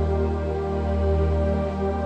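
Slow ambient new-age music: sustained synthesizer pads over a deep steady drone, with no clear beat.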